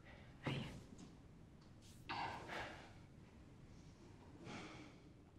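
A woman's soft, shaky breathing: three short breaths or sighs, about half a second, two seconds and four and a half seconds in, the one around two seconds the loudest.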